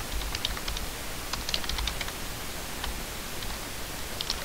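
Computer keyboard typing: short runs of keystroke clicks with pauses between them, over a steady background hiss.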